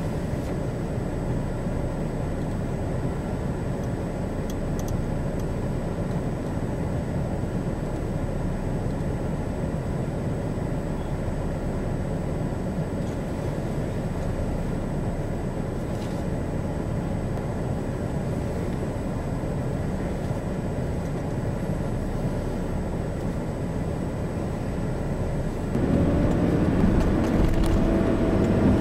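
Steady low rumble and hiss, then near the end a louder car driving on the highway, heard from inside: engine hum over road noise.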